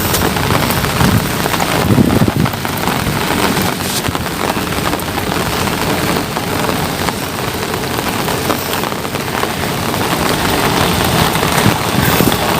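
Rain falling steadily, an even hiss of drops, with a low rumble swelling briefly about two seconds in.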